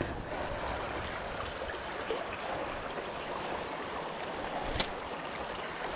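Steady rush of flowing stream water, with one sharp click about five seconds in.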